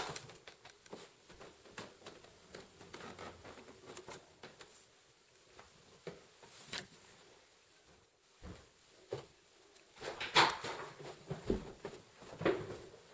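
Handling noise from a handheld camera with scattered light clicks and knocks. The knocks turn sharper and more frequent about three seconds before the end.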